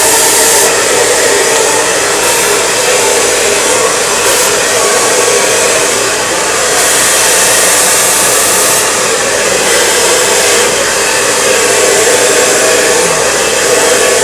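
Handheld blow dryer running steadily at high power, blowing air through long hair during a brush blow-dry, with a steady motor whine under the rush of air.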